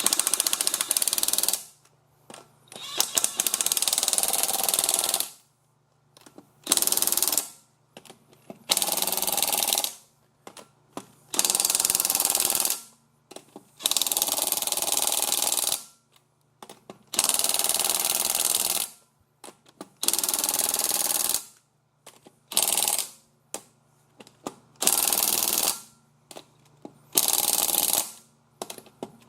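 Impact wrench hammering in about a dozen short bursts of one to two seconds each, running lug nuts onto the wheel.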